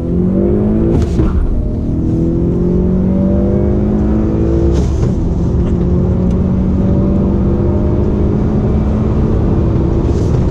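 The turbocharged 2.0-litre four-cylinder engine of a 2018 Honda Accord pulling hard under heavy throttle, heard from inside the cabin. Its note climbs steadily and breaks at gear changes about one and five seconds in.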